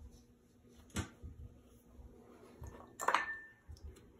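A small hand tool clinking against a porcelain toilet base while the caulk around it is smoothed: a sharp tick about a second in, then a louder clink with a brief ring near three seconds.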